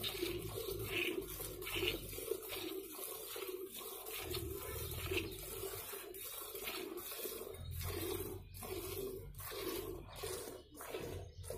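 Hand milking of a cow: milk squirting from the teats into a steel pail, a rhythmic spray with each squeeze.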